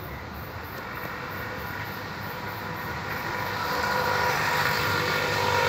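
A large vehicle approaching, its steady noise and several held tones growing louder from about three seconds in.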